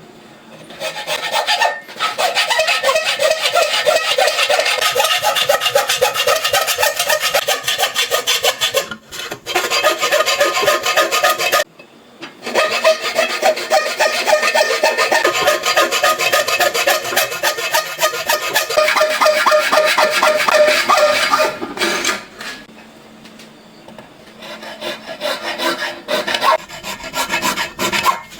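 Harsh, rasping metalwork on aluminum, a rapid run of fine scraping strokes. It goes in long stretches of several seconds, with short breaks about a third and halfway in and a longer lull near the end.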